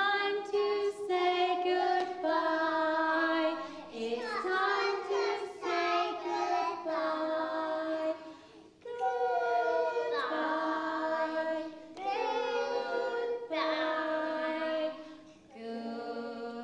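A group of young children and a woman singing a nursery rhyme together, in sung phrases with short breaks between them.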